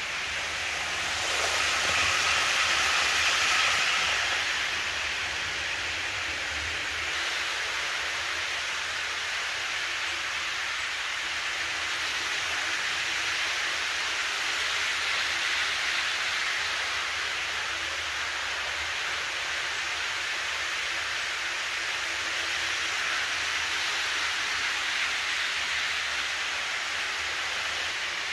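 Model electric train running along the track: a steady rolling hiss that swells as the train passes, most strongly a few seconds in and again about halfway through.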